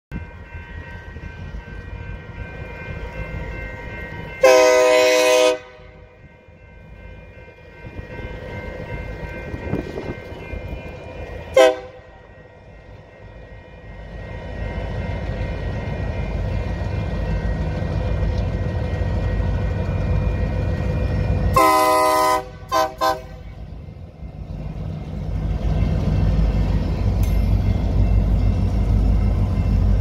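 Union Pacific diesel locomotive's air horn: a long blast about four seconds in, a short blast near twelve seconds, then a long blast followed by two quick short toots around twenty-two seconds. Under it, the low rumble of the diesel locomotives grows as the train approaches and is loud near the end.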